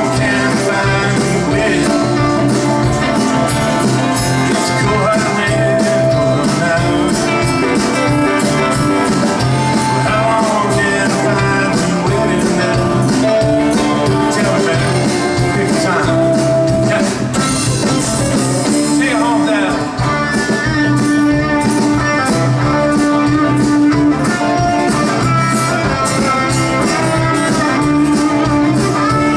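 Live rock band playing a song, with acoustic and electric guitars, bass guitar, keyboard and drums, at a steady loud level.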